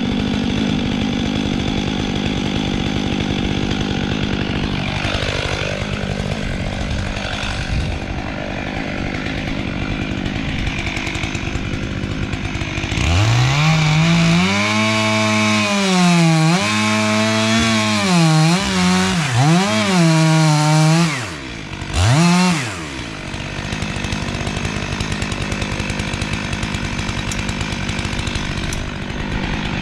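Chainsaw running throughout a tree felling. From about halfway in, the saw gets louder and its engine speed rises and falls several times, dipping briefly once, before it settles back to a steady run.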